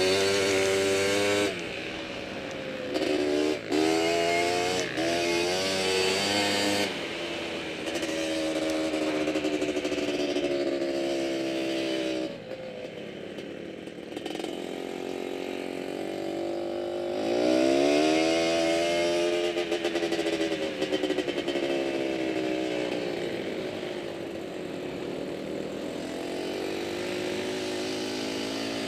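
Quad (ATV) engine running under load on sand, its pitch rising and falling with the throttle. It drops back about twelve seconds in, then revs up hard about five seconds later.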